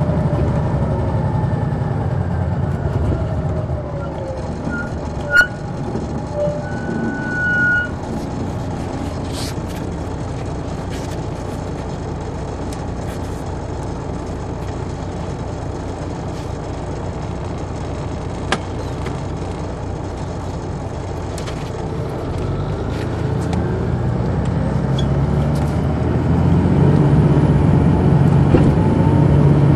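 Detroit Diesel Series 60 diesel engine of a 2002 MCI D4000 coach, heard from the rear seat inside the bus. The engine note falls over the first few seconds, runs steadily and quieter through the middle, then climbs and grows louder from about two-thirds of the way in as the coach pulls harder. A sharp knock comes about five seconds in and a short high tone follows soon after.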